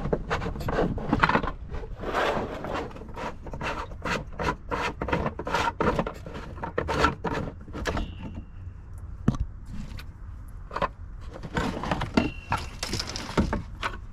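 Old jacuzzi heater and its fittings being handled during removal: irregular scraping, clicks and knocks of hard parts, with two short high squeaks, about eight seconds in and again about four seconds later.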